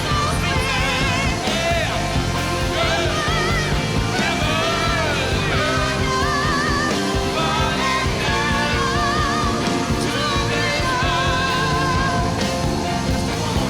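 Live rock music with singing: long, wavering vocal lines with heavy vibrato over the full band.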